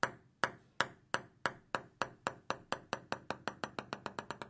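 A run of light, ringing taps, about two a second at first, coming ever faster and fainter until they patter out, in the pattern of a small ball bouncing to rest.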